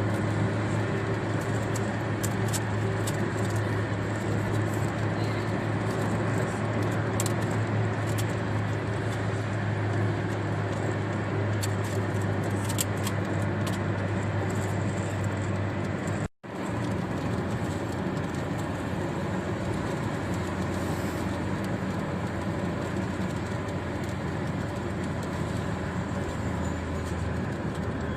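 Rain on a car's windshield heard from inside the cabin while driving on a highway, over a steady low drone of road and engine noise. Scattered sharp ticks come through in the first half, and the sound cuts out for an instant a little past halfway.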